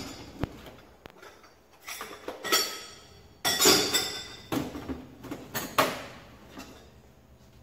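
Tools and metal parts being handled and shifted in the cargo area of a van: a series of knocks and rattles, the loudest near the middle.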